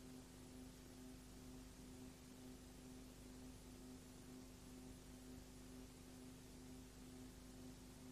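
Near silence: a faint steady hum over an even hiss, unchanging throughout.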